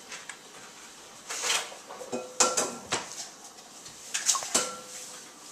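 Kitchen clatter of dishes and utensils: a handful of sharp clinks and knocks, two of them ringing briefly.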